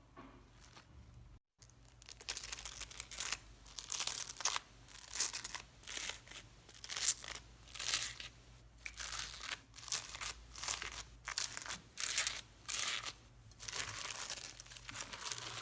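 Slime being squeezed and worked by hand, with repeated crackling, crinkling bursts about one or two a second. It starts faintly and the crackling begins about a second and a half in.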